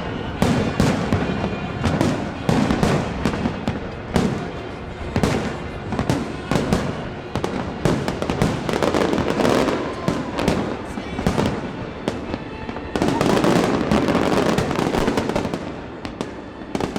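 A fireworks display with shell bursts banging in quick succession and crackling between them. A dense, continuous stretch of crackling comes near the end.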